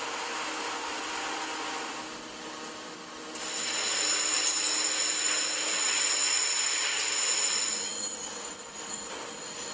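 Workshop machinery running with a steady mechanical noise. About three seconds in it gets louder and takes on a high, steady whine of several tones, which eases off near eight seconds.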